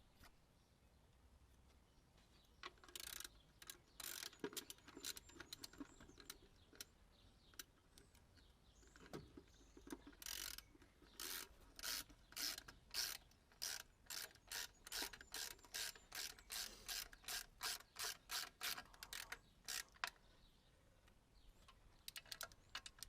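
Hand ratchet wrench clicking as a bolt is wound in on a mini digger's track gear: a few short rasping runs, then from about halfway a steady run of strokes, about two to three a second.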